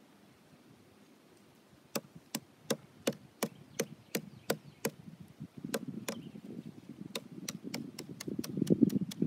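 A piece of firewood pounding on a log, crushing coffee tied in a cloth bag: sharp wooden knocks about two or three a second, starting about two seconds in. From about halfway a coarse grinding noise builds under the knocks and is loudest near the end.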